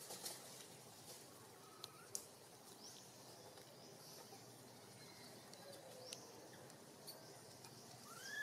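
Near silence: faint outdoor ambience with a few soft clicks and faint high chirps. Near the end an arching, chirp-like high call begins.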